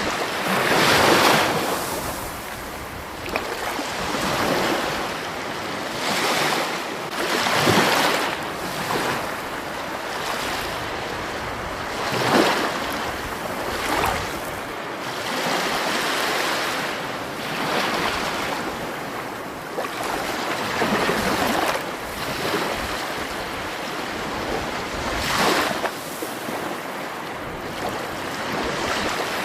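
Waves washing in and breaking: a rushing hiss that surges and ebbs every few seconds, with the strongest surges about a second in, near eight seconds and near twelve seconds.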